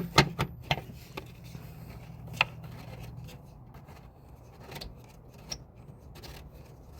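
Scattered small clicks, knocks and light scraping of parts being handled and fitted by hand, with a faint steady low hum underneath.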